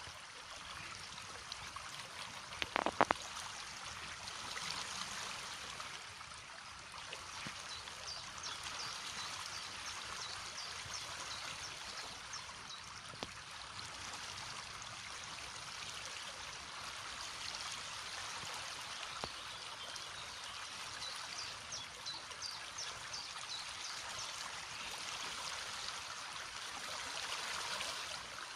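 River water flowing steadily, with a couple of sharp clicks about three seconds in.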